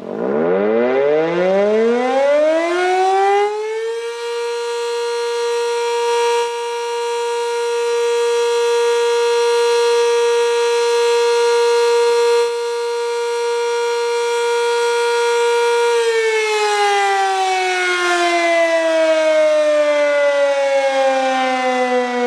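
Single-tone outdoor warning siren winding up from a low pitch to a steady high tone over about four seconds, holding that tone for about twelve seconds, then slowly winding down.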